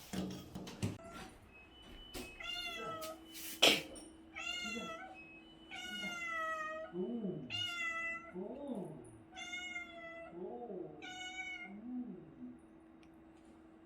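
Domestic cat meowing in a string of about six babbling, chattering calls as it greets its returning owner. A single sharp click sounds a little under four seconds in.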